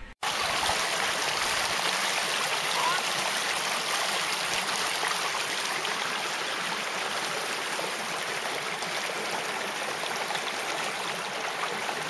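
Fast-flowing stream rushing over rocks: a steady, even splashing and rushing of water that starts abruptly after a brief moment of silence.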